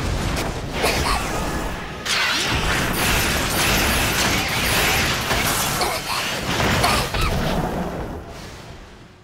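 Anime battle sound effects: a loud, sustained rushing and crackling blast of a magic blood-blade attack, mixed with music, swelling about two seconds in and fading away near the end.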